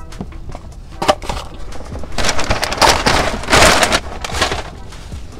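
Paper food wrapper and cardboard burger box crinkling and rustling as they are handled. There is a sharp crackle about a second in, then a longer, louder stretch of crinkling from about two seconds in until past four.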